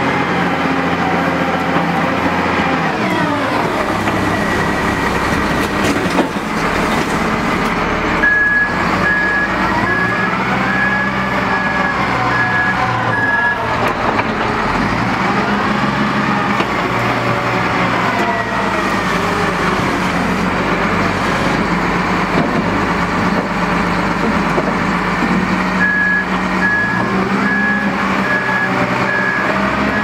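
Wheel loader's diesel engine running and revving up and down as the loader works its arms through a quick-coupler change. A reversing alarm beeps steadily at about one and a half beeps a second, from about eight seconds in for five seconds and again near the end.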